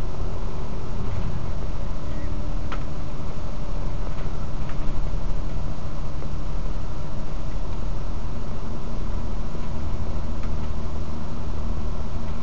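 Bus cabin noise while driving: a steady low engine drone and road rumble, with a few light clicks and rattles, the loudest about three seconds in.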